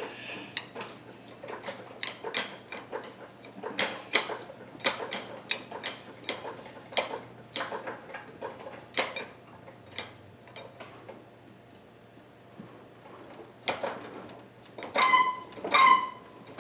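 Irregular sharp metallic clicks and knocks of hand tools and steel parts being worked around a car engine's motor mount. A quieter stretch follows, then near the end come a few louder clinks that ring briefly.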